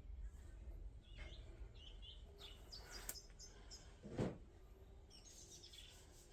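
Faint bird chirps in short scattered calls over a low background rumble, with one dull thump about four seconds in.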